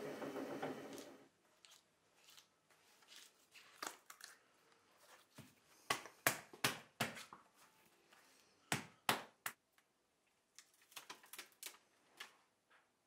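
A motor spinning a cricket bat handle runs for about the first second, then stops. After that come scattered sharp clicks and light crinkling as hands handle a small sticker, with the loudest clicks around the middle.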